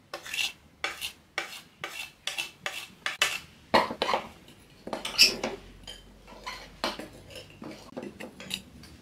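Metal fork clinking and scraping on a ceramic plate and bowl, with a quick run of clinks over the first three seconds, then stirring dry flour round the bowl with scrapes and lighter taps.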